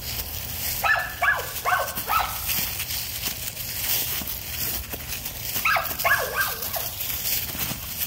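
American Pit Bull Terrier puppy barking in two quick runs of about four short, high, falling barks, one about a second in and another about six seconds in. Dry leaves rustle and crunch as it pushes a ball around.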